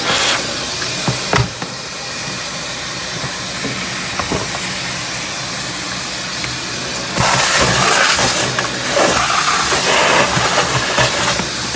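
Shop vac running, sucking the leftover water and debris out of a sump pit. Its rushing note gets louder and rougher about seven seconds in, with a couple of brief knocks before that.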